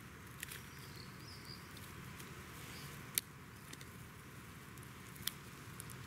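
Two Jack Russell terriers chewing and tugging at fallen twigs in grass: soft rustling and gnawing with a few sharp clicks, the loudest about three seconds in.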